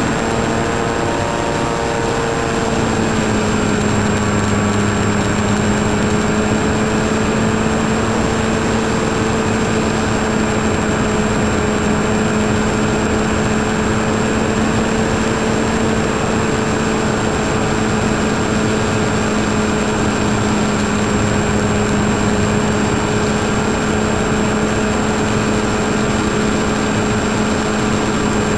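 Engine and propeller of a small propeller-driven aircraft, heard from a camera on board: a steady drone over rushing wind noise. Its pitch sags slightly about two seconds in and then holds level, and a faint thin high whine runs underneath.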